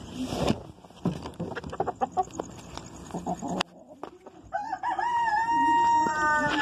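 A rooster crowing once: a long held call that starts about four and a half seconds in, wavering at first, then steady and falling off at the end. Before it come a few seconds of rustling and light knocks.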